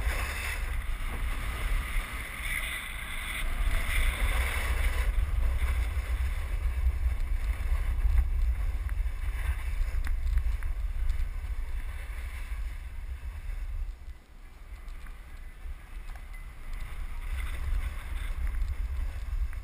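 Wind buffeting the microphone of a rider's camera, over the hiss of a snowboard sliding and scraping on packed snow. The scraping is strongest in the first five seconds, and the whole sound eases about fourteen seconds in.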